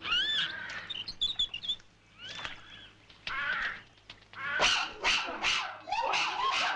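Chimpanzee calling: high, arching screeches, a few scattered ones at first, then a rapid run of loud calls in the second half.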